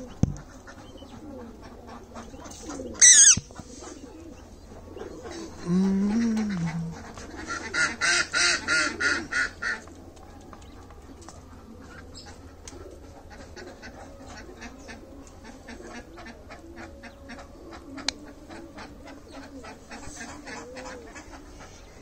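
Rose-ringed parakeet calling: a single sharp, falling screech, a short low voice-like note a few seconds later, then a rapid run of harsh chattering calls at about ten a second. Faint scattered ticks follow.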